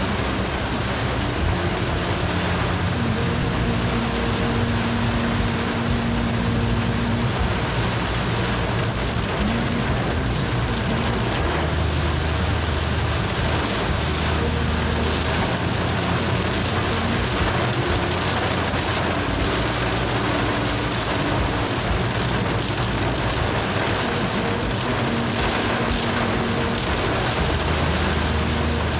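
Heavy rain pelting a moving car's windshield and body in a tropical downpour, a steady dense hiss with a low hum underneath.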